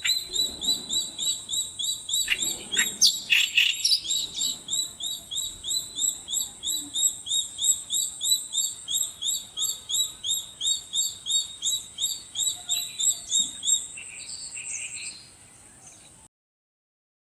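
A bird repeats a short, high chirp about four times a second in a long, even series. There are a few clicks and rustles about two to four seconds in. The calls fade near the end, then the sound cuts off abruptly.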